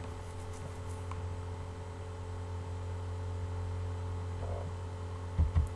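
Steady low electrical hum with faint hiss, with a brief low thump about five seconds in.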